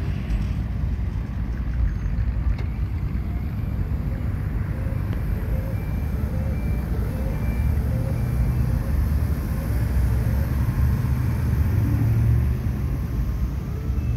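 Early-1960s Ford Thunderbird's V8 engine idling with a steady low rumble, a little louder in the second half.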